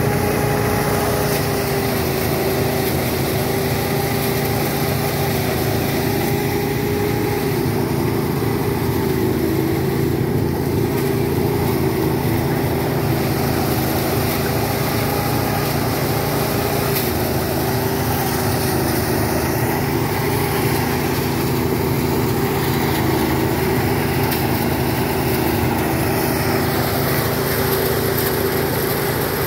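Small engine of a rice threshing machine running steadily at a constant speed.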